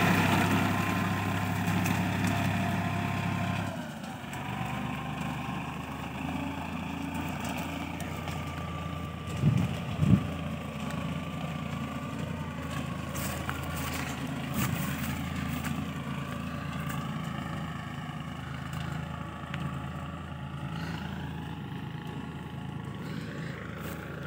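Farm tractor's diesel engine running steadily, becoming fainter about four seconds in, with its pitch wavering up and down in the second half. Two low thumps sound about ten seconds in.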